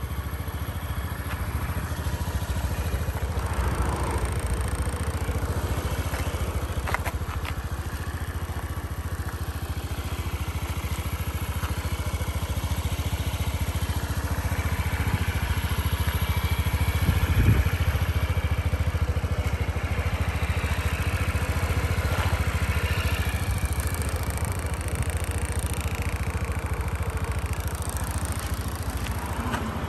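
2007 Honda Zoomer scooter's water-cooled four-stroke single-cylinder engine idling steadily. The engine is in good running order.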